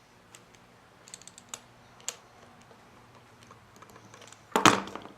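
Light clicks and ticks from a screwdriver and a plastic plug being handled, then one short, louder clatter about four and a half seconds in.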